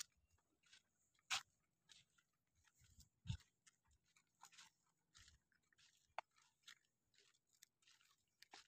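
Near silence broken by faint, scattered crackles and short clicks, with two louder knocks about one and a half and three and a half seconds in.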